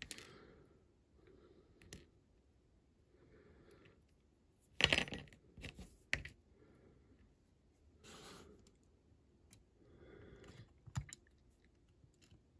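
Scattered light clicks and taps of small parts and tools being handled on a workbench while a die-cast model car is glued together, with a louder clatter about five seconds in.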